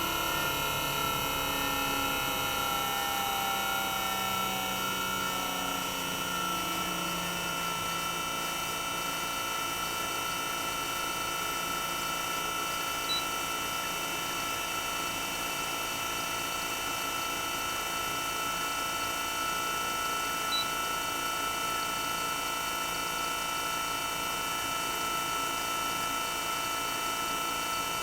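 Toshiba twin rotary inverter compressor (DA91A1F-42F) running with its sound insulation removed: a steady whine made of several pitched tones, a few of them shifting and settling in pitch during the first several seconds. Two faint ticks come in the middle.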